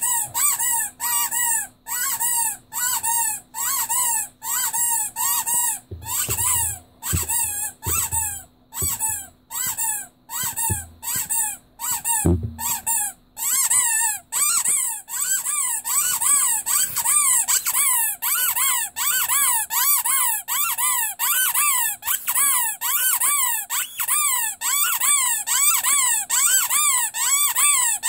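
Rubber Pinocchio squeaky toy being squeezed over and over, each squeak rising then falling in pitch. The squeaks are spaced at first, with a few low handling knocks, then come faster and almost without pause from about halfway.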